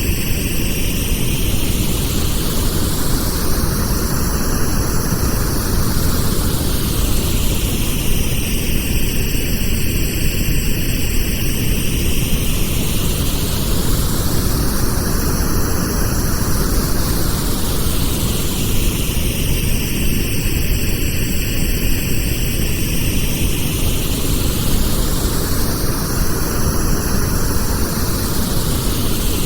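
Pink noise played as a tinnitus masking sound: a steady, loud hiss with a slow whooshing sweep that rises and falls about every eleven seconds.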